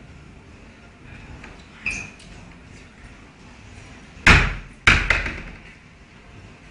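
Two heavy thuds about half a second apart, a little past the middle, each dying away over a fraction of a second, after a lighter knock near two seconds in.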